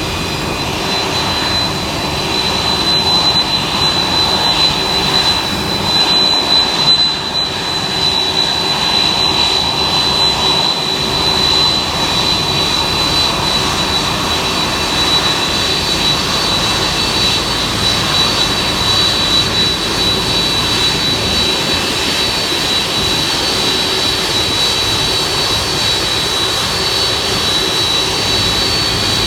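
Boeing 767 jet engines running at taxi power: a steady rumble with a high whine, a second whine tone joining about halfway through as the airliner draws closer.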